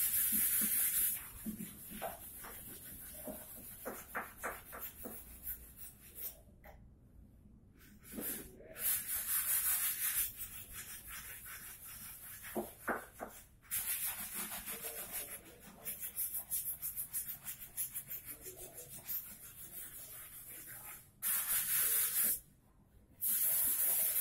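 Sandpaper rubbing on wood by hand in runs of quick strokes, broken by four short, loud bursts of hissing air: one at the start, one about nine seconds in, and two near the end.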